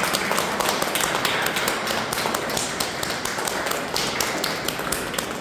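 Audience applauding: many hands clapping in a dense patter, thinning and fading near the end.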